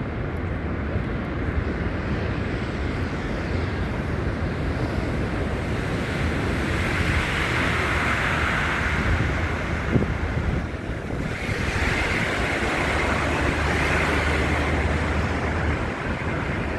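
Steady city traffic noise with a low engine hum, swelling twice as vehicles pass, and wind buffeting the phone's microphone.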